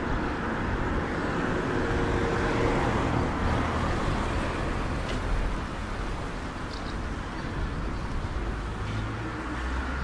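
Road traffic noise: car engines and tyres on the street, a steady low rumble.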